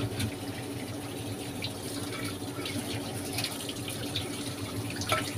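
Tap water running into a stainless steel sink as ceramic dishes are rinsed and scrubbed by hand, with a few faint clinks.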